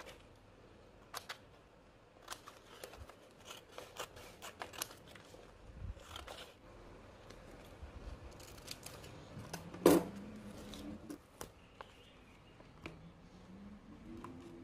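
Scissors snipping through paper: a run of short, crisp cuts at an uneven pace, with one sharper, louder click about ten seconds in.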